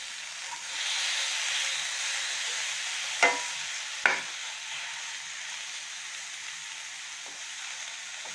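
Chopped tomato and onion-garlic masala sizzling in hot oil in a metal frying pan while being stirred with a slotted metal spoon; the sizzle grows louder about a second in. The spoon knocks sharply against the pan twice, about a second apart, around three seconds in.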